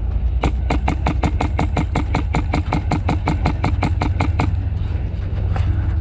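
An airsoft gun firing a long, rapid burst: about seven sharp cracks a second for roughly four seconds, stopping abruptly, over a steady low rumble.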